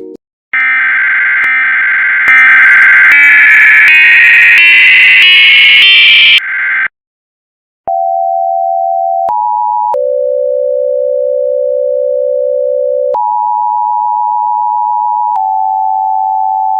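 Emergency Alert System tones, edited and pitch-shifted: first a loud buzzy data-burst sound that steps up in pitch over about six seconds. After a second of silence, the steady two-tone EAS attention signal jumps down and up between several pitches, holding each for one to three seconds.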